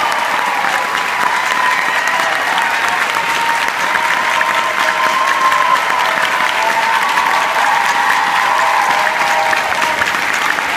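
Large theatre audience applauding steadily, with held cheers over the clapping at a curtain call.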